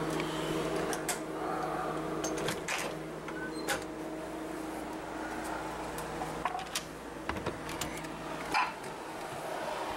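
Footsteps and sharp handling clicks as a glass storm door with a lever handle is opened and passed through, the loudest knock near the end. Under it a steady low household hum fades out partway through.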